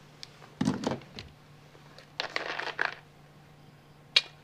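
Soft mouth and handling noises from a man with a dip of snuff in: a short breathy sound, a longer hiss a couple of seconds in, and a sharp click near the end as a plastic soda bottle used for spitting comes to his lips.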